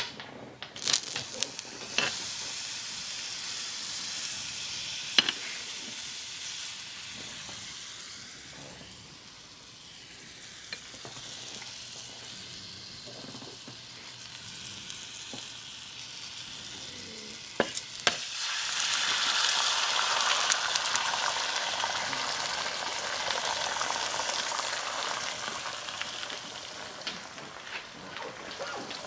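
Butter sizzling in a hot mini cast iron skillet, with a few sharp taps of the metal spoon against the pan near the start. About two-thirds of the way through come a couple of sharp cracks, and the sizzle jumps louder as a raw egg goes into the hot butter and starts to fry.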